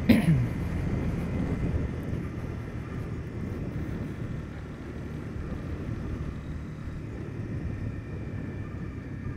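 Single-cylinder engine of a 2015 Honda CB300F motorcycle running at a steady pace while it is ridden.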